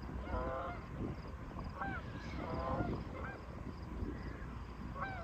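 Geese honking, a series of short calls spaced a second or so apart, over a low rumble.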